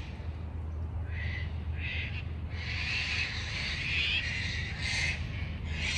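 Birds calling: short calls repeat about every second, with a longer run of calls in the middle, over a steady low rumble.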